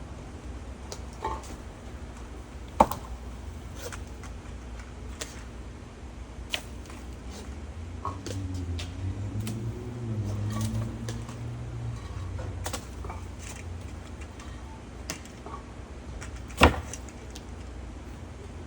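Scattered clicks and knocks over a low steady rumble, with two sharp louder knocks about three seconds in and near the end, and a low hum that wavers in pitch in the middle.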